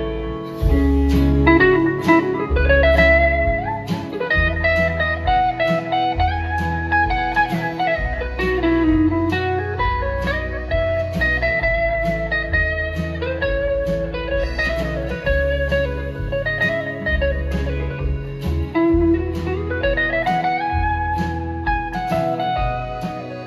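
Live country-rock band playing an instrumental break: a lead guitar plays a melody of bending, sliding notes over strummed acoustic guitar, bass and a steady drum beat.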